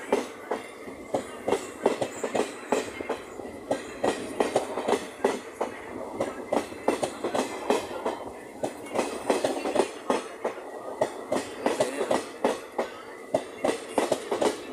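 Passenger train coaches passing at speed, their steel wheels clattering over the rail joints in rapid, uneven clicks, several a second, over a steady rumble.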